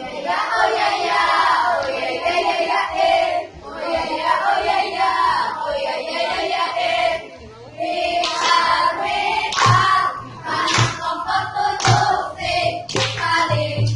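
A group of young people chanting a cheer together in unison, with hand clapping. From about eight seconds in, the clapping becomes sharp and rhythmic.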